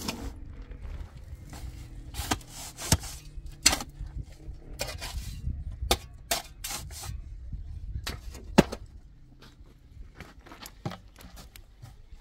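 Steel shovel scraping into a pile of sand and tipping loads into a metal wheelbarrow: a run of irregular gritty scrapes and knocks, densest through the first two-thirds and thinning out near the end.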